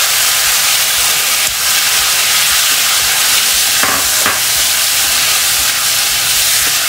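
Marinated prawns sizzling loudly in hot oil in a kadai, a steady dense hiss of frying. A couple of brief knocks come about four seconds in.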